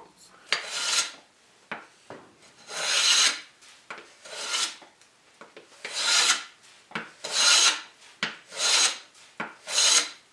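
No. 4 bench hand plane with a freshly sharpened and honed iron shaving a board: about seven hissing strokes, one every second or so, with light clicks as the plane is set back for each pass.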